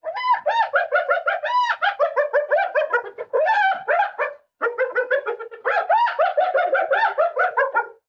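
Spotted hyena giggling: a fast run of short, pitched yelps, about eight a second, each rising and falling in pitch, with a brief break about halfway through.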